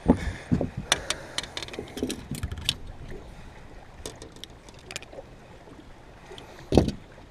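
Handling noise on a fishing boat as a small bass is worked off a swallowed hook: irregular knocks and thumps, a quick run of light clicks and rattles from about one to three seconds in, and one louder thump near the end.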